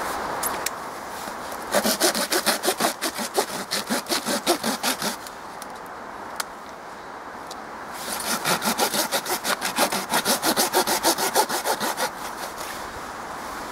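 Folding saw cutting into the resinous fatwood of a fallen old pine: two bouts of quick back-and-forth strokes, about four a second, the first from about two to five seconds in and the second from about eight to twelve seconds in.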